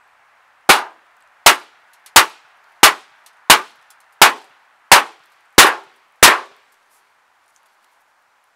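A hammer striking a metal plate nine times in a steady rhythm, about 0.7 seconds apart, each blow ringing briefly. This is a shock-sensitivity test on a small sample of tetrabromoethylenediamine, which gives nothing that could be called an explosion.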